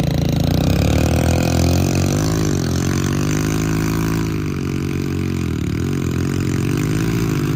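Small commuter motorcycle engine revving hard, its pitch held high and dipping briefly, then climbing again, about four times.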